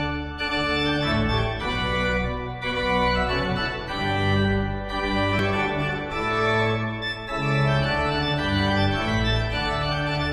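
Instrumental intro music on an organ: held chords over a bass line that moves to a new note every second or so.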